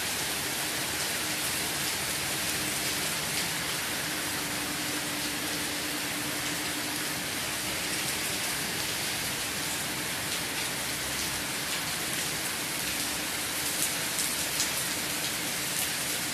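Steady rain falling, heard as an even hiss, with a faint steady hum underneath in the first half. Near the end a few sharper drop hits tick close by.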